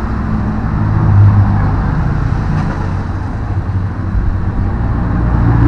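Steady low mechanical rumble like engines running, its pitch wandering slightly, swelling about a second in and again near the end.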